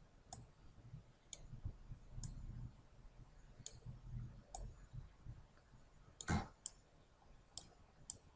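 Faint computer mouse button clicks: about nine single clicks at uneven intervals, the loudest about three quarters of the way through, over a low handling rumble.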